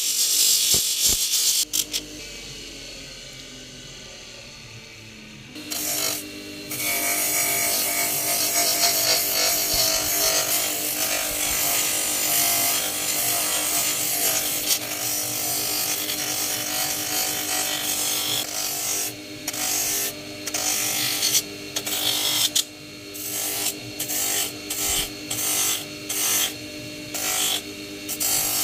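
Bench grinder running while a coconut shell is pressed against its spinning abrasive wheel, a loud rough grinding over the steady motor hum. About two seconds in the grinding stops and only the motor hum is left for a few seconds, then the grinding resumes; near the end it comes in short bursts as the shell is pressed on and lifted off the wheel again and again.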